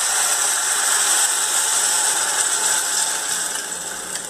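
Fish broth poured into a hot saucepan of onion and garlic frying in olive oil, hitting the oil with a loud sizzle that slowly dies down.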